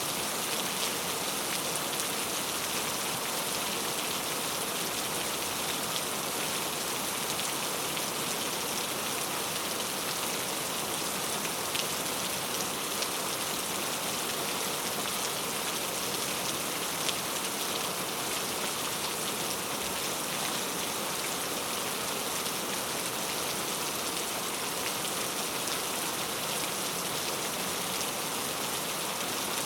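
Heavy, steady rain falling, a dense hiss of drops pattering on surfaces, with fine individual drop ticks scattered through it.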